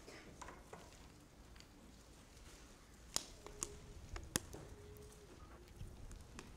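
Hushed room with a few faint sharp clicks and taps between about three and four and a half seconds in, and a faint brief hum, as Bibles are handled and pages turned.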